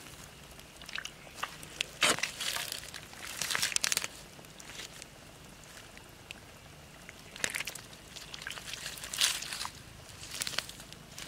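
Dry stems and twigs crackling and rustling as bare hands push through them and dig into the mud, in irregular bursts with the loudest about two, four, seven and nine seconds in.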